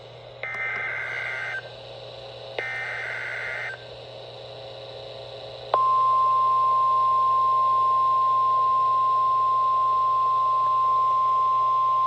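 NOAA Weather Radio alert through a weather radio's speaker: two short, screechy SAME digital header bursts, about two seconds apart, then, about six seconds in, the steady 1050 Hz warning alarm tone that marks a warning-level alert, here a High Wind Warning.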